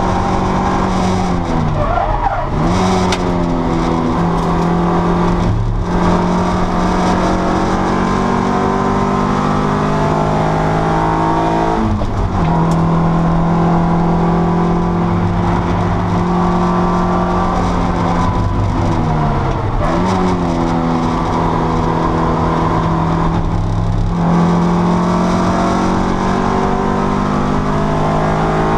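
A race car's engine heard from inside the cockpit, running hard at a fairly steady pitch. Twice the pitch drops and climbs back, as when the driver brakes and changes down for a corner. A few times the sound breaks off for a moment, as at a gear change.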